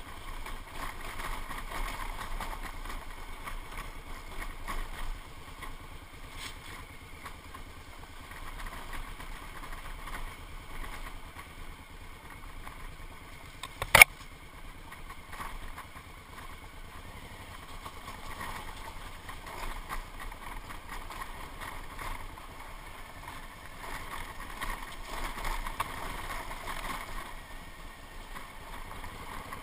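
Motorcycle engine running as the bike is ridden along a dirt trail. About halfway through, a branch strikes the camera with one sharp, loud crack.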